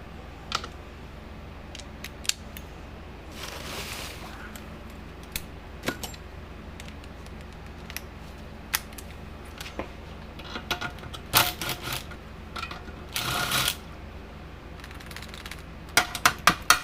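Hand tools clicking and scraping on metal as a tight fastener is worked loose on the fence charger. Scattered sharp clicks, a few short bursts of rasping, and a quick run of loud clicks near the end.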